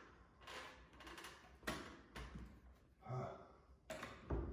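A few faint, scattered knocks and taps, with a brief low murmur about three seconds in.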